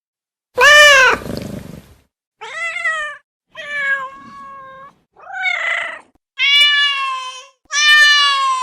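Cat meowing loudly, six separate meows with short gaps between them; the first is the loudest and ends in a noisy, raspy tail.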